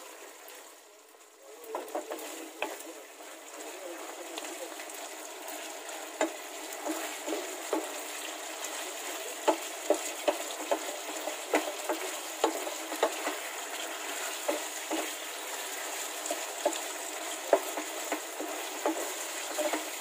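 Pork pieces sizzling in thick oyster sauce in a nonstick frying pan as the sauce cooks down, stirred with a wooden spoon that knocks and scrapes against the pan. The sizzle dips briefly about a second in, then runs steadily with frequent spoon knocks.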